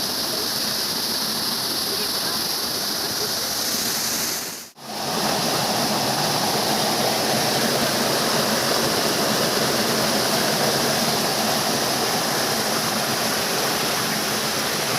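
Steady rushing of a waterfall's water, an even roar with no pauses. About five seconds in it briefly fades out to near silence and comes straight back.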